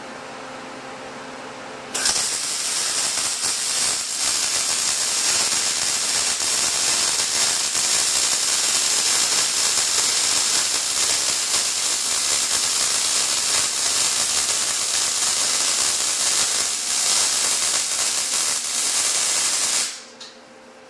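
MIG welder arc crackling and hissing steadily while a vertical-up bead is run on steel square tube; it starts suddenly about two seconds in and cuts off about a second before the end. A steady low hum comes before the arc strikes.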